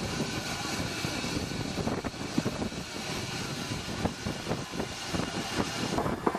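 Vintage portable steam engine running: a steady mechanical noise broken by short knocks, a few louder ones near the end.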